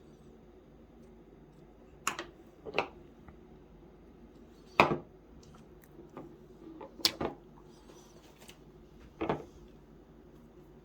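Packaging and parts being handled and set down: a handful of separate light knocks and clicks, a second or two apart, over a faint steady hum.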